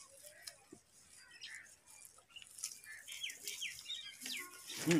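Small birds chirping: a run of short, high, falling notes in quick succession in the second half.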